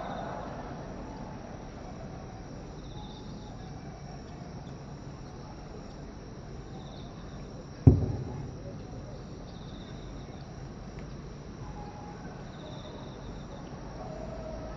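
One distant aerial firework shell bursting about eight seconds in, a single low boom with a short echoing tail. Insects chirp in short repeated trills in the background.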